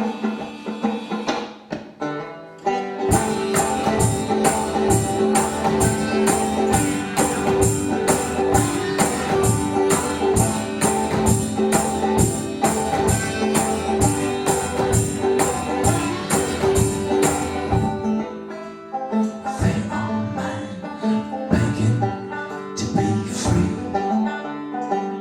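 Band playing live, instrumental opening: plucked strings alone at first, then the full band comes in about three seconds in with a steady beat, thinning out again near the end.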